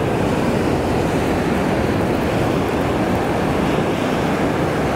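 Ocean surf breaking and washing up the beach, a steady rushing, with wind buffeting the microphone.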